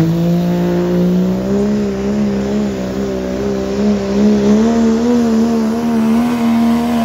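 Diesel pickup truck engine at high revs under heavy load, pulling a weighted sled. The engine note holds high and climbs slowly, wavering as it goes.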